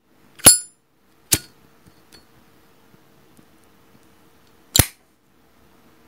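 Zippo lighter handled in three sharp metallic clicks: the lid flips open with the ringing Zippo clink, the flint wheel is struck about a second in, and the lid snaps shut near the end. A faint steady hum runs between the strike and the close.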